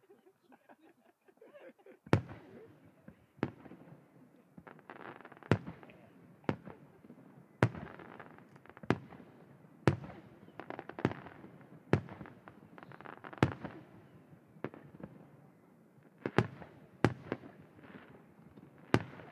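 Aerial firework shells bursting in steady succession, starting about two seconds in. There is a sharp boom every second or so, with a rolling echo between the bangs.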